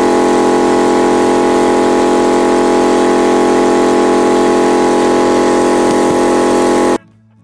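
Yamaha TDM 850's parallel-twin engine idling steadily at an even pitch after its valve clearances have been set, cutting off abruptly near the end.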